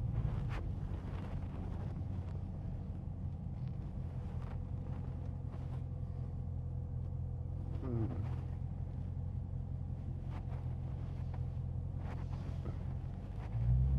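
Dodge Scat Pack's 6.4-litre HEMI V8 running at low speed with a steady low rumble, swelling louder near the end. A brief falling chirp comes about eight seconds in.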